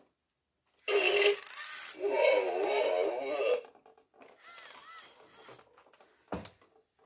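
Robosapien toy robot's speaker giving warbling, voice-like electronic sounds in two bursts, about a second in and again from two seconds in. Fainter chirps follow, and a single sharp click comes near the end.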